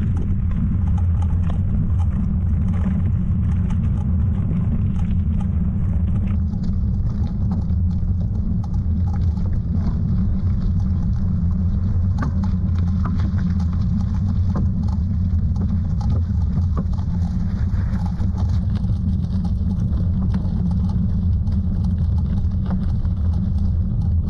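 Steady low wind rumble on the microphone, with faint scattered ticks and rattles over it.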